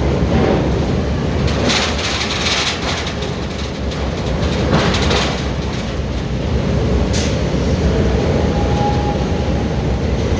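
Rotary hearth furnace plant running: a loud, steady low rumble, with bursts of hiss from about one and a half to three seconds in, around five seconds in and briefly after seven seconds.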